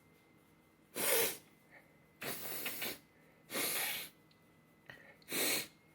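A person breathing close to the microphone: four short, breathy blasts spread over a few seconds.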